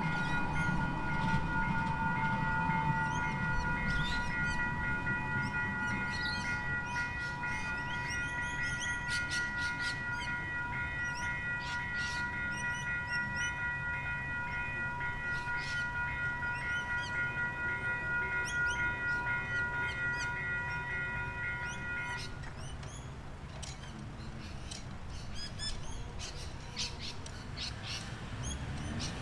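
Electronic level-crossing bells at a tram crossing dinging over and over, then stopping abruptly about 22 seconds in as the crossing clears. A passing tram rumbles low in the first few seconds, and birds chirp throughout.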